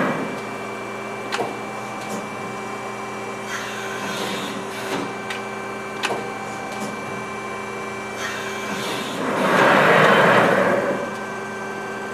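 Amada HFB-125 hydraulic press brake cycling: the hydraulic pump hums steadily with a constant whine, a few sharp clicks sound, and a loud rushing swell of hydraulic flow lasts about two seconds near the end. The hydraulics sound healthy.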